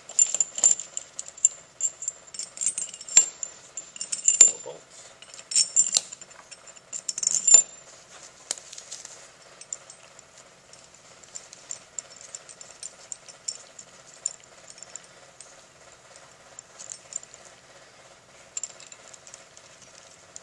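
Sharp metallic clinks of small steel fasteners and stainless-steel parts knocking together as they are handled and set onto a pneumatic chemical injection pump motor, many of them over the first eight seconds or so. After that only faint, scattered ticks as the parts are worked by hand.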